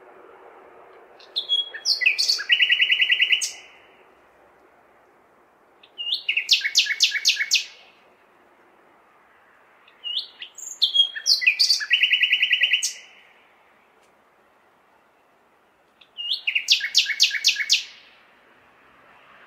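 Nightingale singing: four loud song phrases of fast, rapidly repeated notes, each about two seconds long, with pauses of a few seconds between them. Under the song runs a faint, steady background hum of the city.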